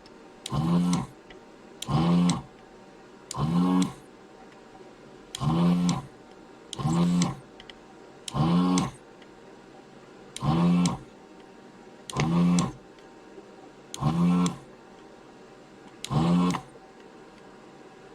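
ZD-915 desoldering station's vacuum pump switching on in short bursts, about ten in all, each under a second and every one and a half to two seconds, as solder is sucked out of the board's through-hole joints one by one.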